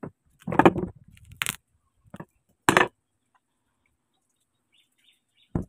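Ripe watermelon being broken apart and handled by hand: a few short cracks and knocks, one in the first second, a sharp one at about a second and a half and one near three seconds, then a long quiet stretch and one more knock at the very end.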